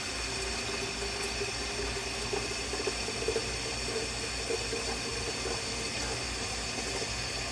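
Tap water running into an electric kettle, filling it steadily, with a faint tone that climbs slightly as the water level rises.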